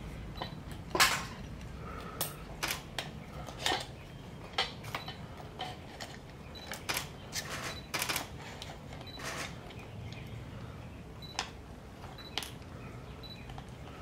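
Camera shutters clicking irregularly, single shots and quick pairs, over a low steady background hum.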